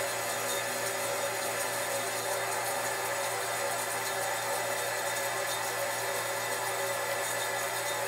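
Refrigerant coursing through the tubing of an old Borg Warner Norge refrigerator as its compressor pumps it around: a steady hiss with faint steady tones under it.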